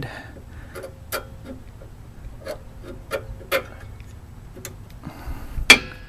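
New rear brake pads being slid and pressed into the caliper bracket: scattered light clicks and taps, then one loud sharp click near the end as the pad seats.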